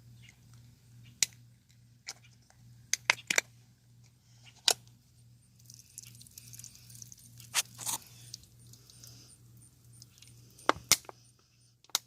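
Scattered sharp clicks and knocks of objects being handled, a dozen or so at irregular intervals, with some faint rustling between them.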